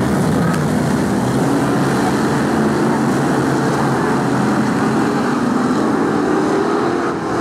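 Several BriSCA F1 stock cars' V8 engines running hard in a race. Their pitch rises and falls as they rev through the bend and pass, making a loud, continuous engine noise.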